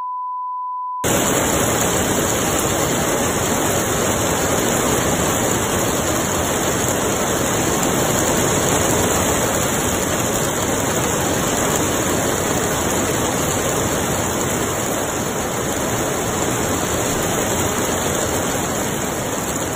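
A pure beep lasting about a second, then a steady, loud hiss of heavy rain.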